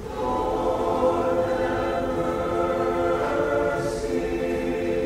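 Church choir singing a Greek Orthodox liturgical hymn in sustained chords, entering fuller and louder right at the start.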